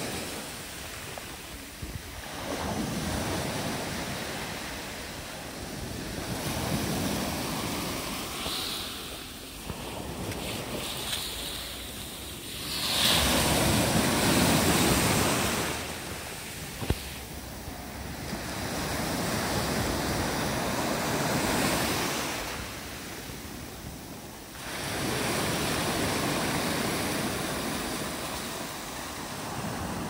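Black Sea surf breaking and washing up a pebble beach in repeated surges, swelling and fading every few seconds, the loudest wave about halfway through.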